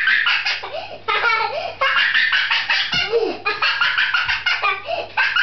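Children laughing: bursts of quick, high-pitched giggling, broken by short pauses about a second in and again around three seconds in.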